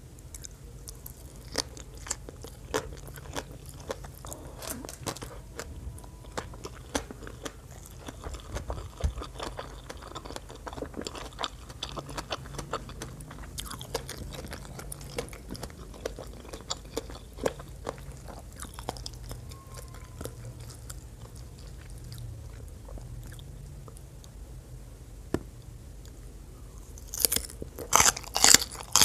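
Close-up mouth sounds of eating shredded green papaya salad: steady wet chewing with frequent small clicks and crackles. Near the end come several much louder crunching bites.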